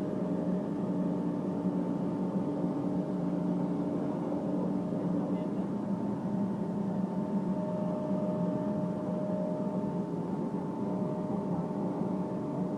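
Steady machinery hum with several constant tones over a low rumble, unchanging throughout.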